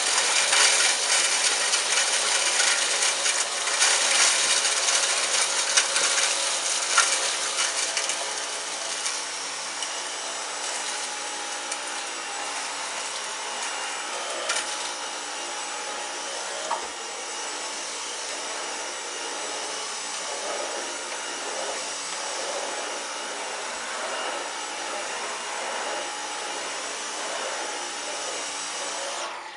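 Dyson V10 Animal cordless stick vacuum running on its lowest power setting while sucking up cornflakes. Over the first eight or so seconds the flakes crackle and rattle up the wand, then the motor settles to a steadier, slightly quieter hum and switches off just before the end.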